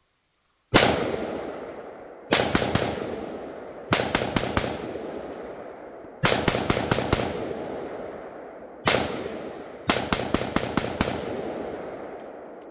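AR-15 rifle fired rapidly in about six quick strings of shots, some single and some of four or more shots close together. Each string trails off in a long echo.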